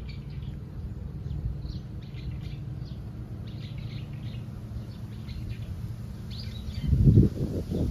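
Small birds chirping, many short high calls scattered throughout, over a steady low rumble that grows loud about seven seconds in.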